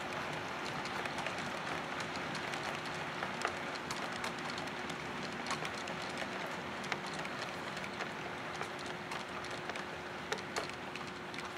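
HO scale model train running along the track: a steady rolling hiss with irregular sharp clicks from the wheels on the rails and a constant low hum.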